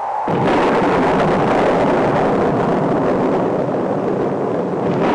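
Intro sound effect: a loud, dense rumbling roar that comes in suddenly just after the start, out of a fading tonal swell, and then holds steady.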